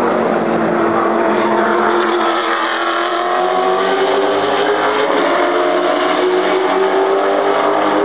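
Engines of racing cars running at speed past the spectator fence, with two cars close together. The loud, steady engine note dips slightly in pitch midway, then climbs again.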